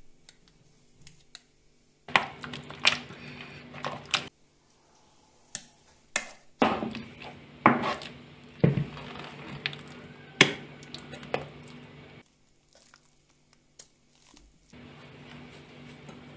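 Boiled potatoes being mashed in a pot with a metal potato masher: soft squishing crushes broken by sharp clicks of the masher striking the pot, in three spells with short pauses between.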